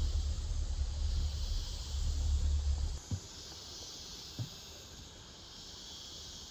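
Steady high-pitched drone of rainforest cicadas and other insects. A low rumble runs under it for about the first three seconds and then cuts off suddenly, followed by two soft knocks.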